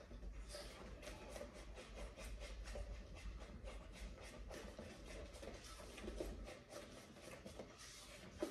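Wooden spoon stirring and scraping cake batter of eggs, sugar and oil around a mixing bowl, in quick repeated strokes, about three a second.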